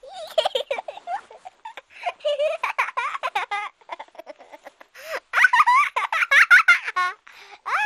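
A small child giggling and laughing in quick, choppy runs, in about three bouts with short pauses between.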